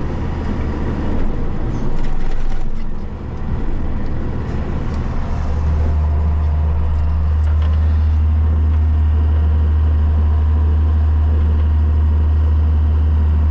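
Tractor engine running steadily with a deep, even hum, which becomes louder and steadier about five and a half seconds in.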